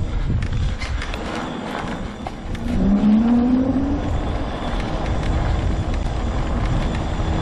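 Homemade all-wheel-drive mobility scooter on the move: its electric motor whine rises in pitch about three seconds in, then holds steady, over a constant low rumble.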